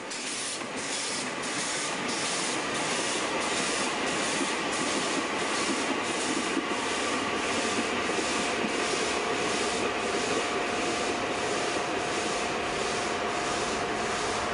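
Replica of the Adler steam locomotive, built in 1935, running with its train, its exhaust chuffing in an even rhythm of about three beats a second.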